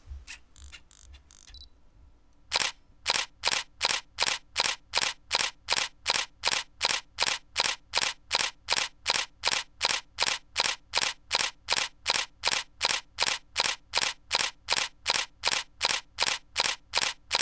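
A sharp click repeated at an even pace, a little over two a second, each one equally loud; it starts between two and three seconds in and runs for about fifteen seconds.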